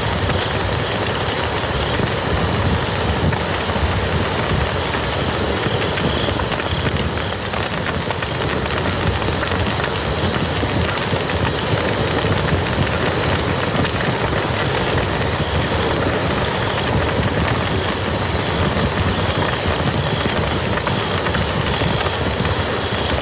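Campfire crackling and popping over the steady rush of a river. A faint high chirp repeats about twice a second for a few seconds in the first third.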